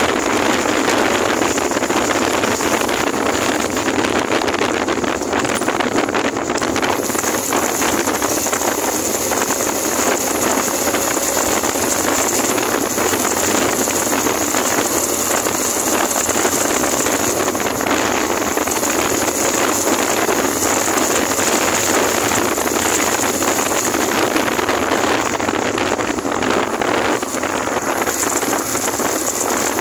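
Steady wind rush over the microphone on a moving Suzuki GN125 motorcycle, with its single-cylinder engine and road noise underneath.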